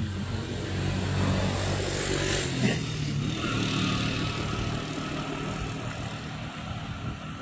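A motor vehicle's engine running, growing louder over the first two seconds and then slowly fading.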